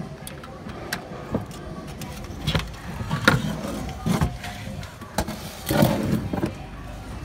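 Irregular knocks and clatters of a bare metal DVR chassis and its cables being handled, loudest in the middle and about three-quarters of the way through, over a steady low rumble.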